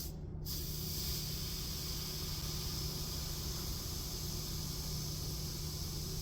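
Faint, steady hiss of steam rising from a wet rag held on a freshly soldered, still-hot copper pipe joint, over a low steady hum.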